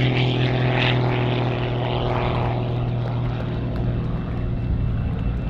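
Edge 540 aerobatic plane's six-cylinder piston engine and propeller running at high power, a steady drone that eases off slightly toward the end.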